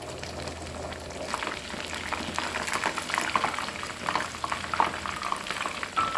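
Food cooking in a pan on the stove, bubbling and spitting with a dense crackle that grows busier after about a second.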